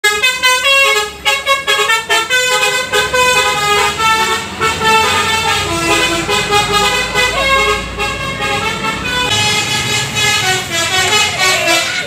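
Basuri musical horns on passing coach buses playing a quick melody of stepping notes, over the low rumble of the bus engines.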